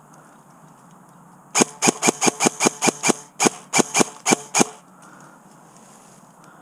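Airsoft gun firing a rapid series of about fourteen shots, roughly five a second, in two strings with a short pause between.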